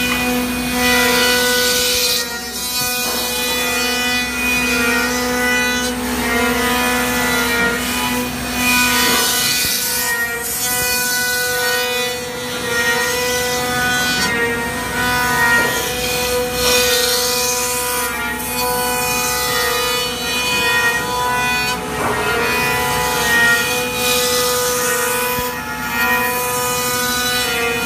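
CNC router spindle running steadily and milling a wooden rifle stock, the cutting noise swelling and fading as the tool makes its passes.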